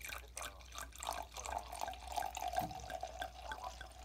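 White wine poured from a glass bottle into a stemmed wine glass: a splashing stream with irregular glugs from the bottle neck, and a steady tone ringing in the glass as it fills from about a second in.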